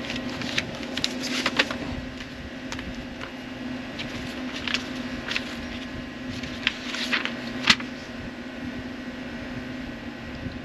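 Paper sheets rustling and crinkling in short sharp bursts as they are handled, over a steady mechanical hum.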